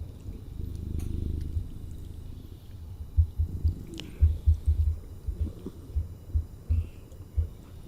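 Cat purring: a low, steady rumble, with a run of louder, uneven low thumps from about three seconds in.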